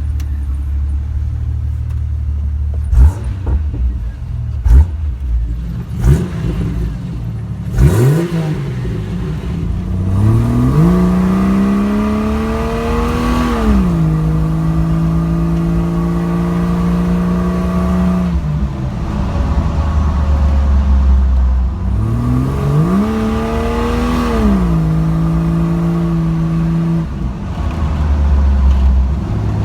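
Jeep Cherokee XJ engine on a test drive, running steadily, then revving up twice with a step down in pitch after each climb and a steady higher hum in between. A few sharp knocks come in the first several seconds.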